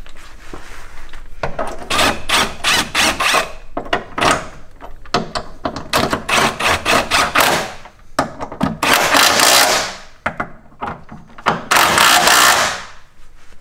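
Cordless impact wrench hammering a nut tight on a new front control arm ball joint, in four main bursts of one to two seconds each with short pauses between.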